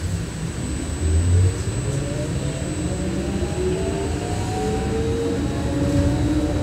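Electric trolleybus pulling away, heard from inside the passenger cabin: the traction drive whines in several tones that rise steadily in pitch as the bus picks up speed. Underneath is a low road rumble, with a low bump about a second in.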